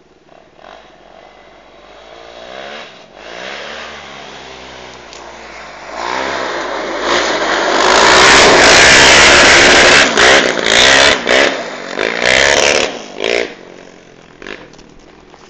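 Sport quad (ATV) engine approaching and revving up and down as it slides sideways through a gravel corner. It is loudest as it passes close by, with repeated throttle blips, then fades away down the track.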